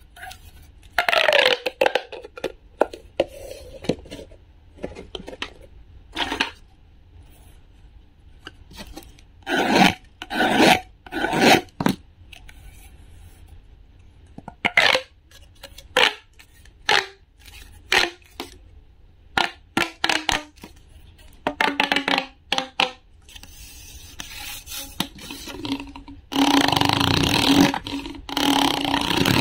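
Ribbed plastic pop tube toys being stretched, bent and squeezed, the corrugations crackling and clicking in short bursts. Near the end a wooden toy knife is rubbed back and forth across the ridges of a tube: a continuous rasping scrape, the loudest sound here.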